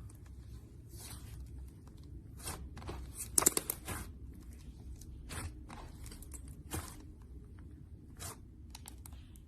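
Slime being squeezed and stretched by hand, giving a series of crisp crackling and crunching pops, with a dense, loud cluster about three and a half seconds in.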